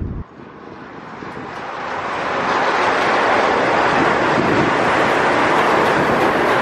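Shonan Monorail suspended train approaching on its overhead box-girder track on rubber tyres. Its running noise swells over the first few seconds, then holds steady and loud as the car passes overhead.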